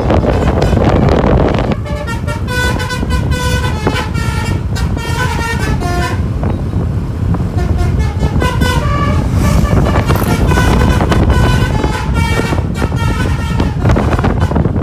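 A bus's Basuri 'pianika' telolet horn playing a quick tune of short horn notes, over the low rumble of the bus engine. The tune starts about two seconds in, after a louder stretch of engine noise.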